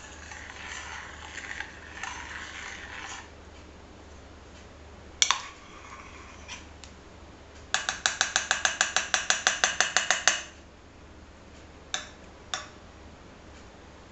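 Spoon clinking against a dish while stirring honey and lemon juice into the herb infusion: a quick, even run of ringing strikes, about five a second for nearly three seconds. Before it there is soft scraping and a single knock, and after it two more single knocks.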